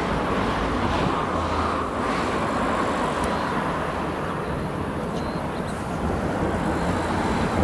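Antonov An-2 biplane's nine-cylinder radial engine and propeller running steadily at takeoff power during the takeoff roll.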